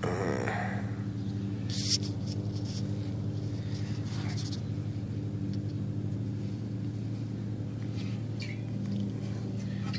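A steady low hum throughout, with a sharp click about two seconds in and brief rustling.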